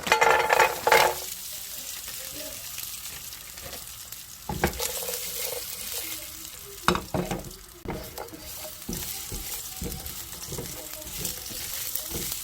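Food sizzling steadily in a frying pan, with a utensil knocking and scraping against the pan now and then while it is stirred. There is a louder clatter in the first second.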